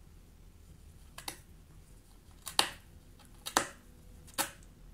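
A pet rabbit biting and gnawing on cardboard: four crisp crunches, about one a second, the second one the loudest.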